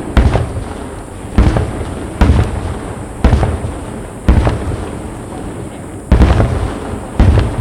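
Aerial firework shells bursting in quick succession: about seven sharp booms roughly a second apart, each trailing off before the next.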